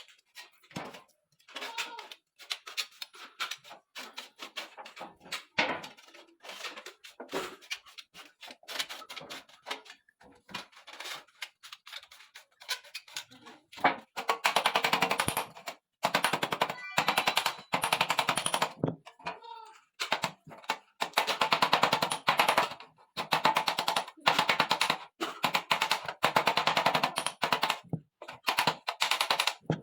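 Rapid mechanical rattling clatter: scattered at first, then from about halfway on in loud bursts of about two seconds each, separated by short pauses.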